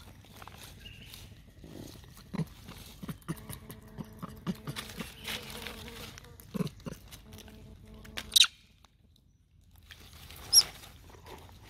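Macaques moving and feeding on dry leaf litter: scattered soft knocks, rustles and chewing. There are two short, sharp, high-pitched calls, one about eight seconds in and one near the end.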